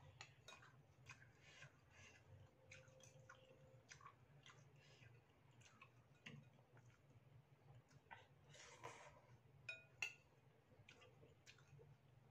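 Faint eating sounds of noodle soup: soft chewing and mouth noises with small clicks of a metal spoon and fork against a ceramic bowl, the sharpest clink about ten seconds in. A low steady hum runs underneath.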